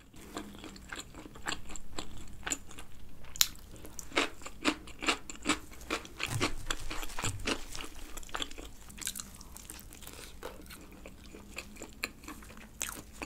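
Close-miked chewing of crisp thin pizza crust made from black-rice dough: irregular crunching and crackling, busiest in the first two-thirds and thinner toward the end.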